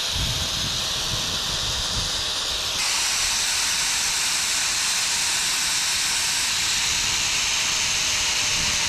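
DeWalt angle grinder with a wire cup brush running steadily, a harsh hiss with a faint motor whine as it scrubs corrosion off copper battery-cable terminal connectors. The sound gets a little louder and brighter about three seconds in.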